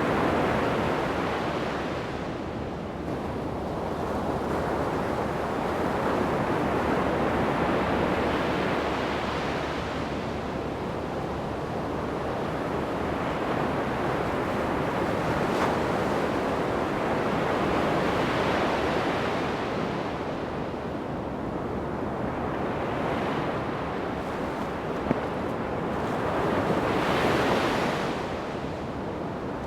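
Ocean surf breaking on a sandy beach, a steady wash of waves that swells and ebbs every few seconds, with some wind on the microphone.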